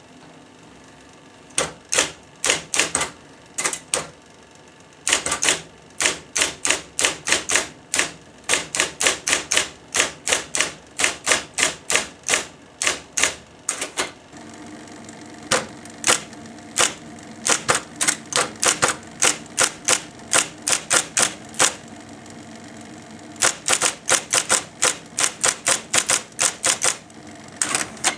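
IBM Selectric golf-ball electric typewriter being typed on: its motor hums steadily under sharp clacks of the typeball striking the paper. The clacks come in uneven runs of several a second, with short pauses between them.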